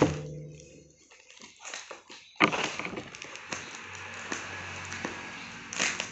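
Plastic bubble-wrap packaging rustling and crinkling as it is handled and its tape picked at, with a sharp crackle at the start and scattered clicks. About two and a half seconds in, a steady hiss comes in under the handling noise.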